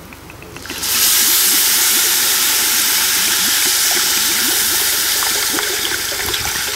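Water poured from a bottle into a hot pot of fried spices, garlic and ginger, flashing to steam with a loud hiss that starts suddenly about a second in and eases slightly toward the end, with bubbling underneath.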